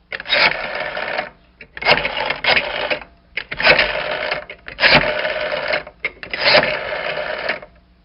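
Phone ringtone ringing in repeated bursts, about five rings a second or so long with short gaps between them.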